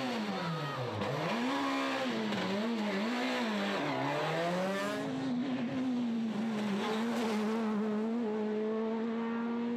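Peugeot 207 Super 2000 rally car's naturally aspirated two-litre four-cylinder engine revving hard around a hairpin: the pitch dives on the brakes and climbs back as it accelerates out, several times over. About halfway through, a Skoda Fabia Super 2000's engine takes over, held high and rising slowly as the car accelerates away.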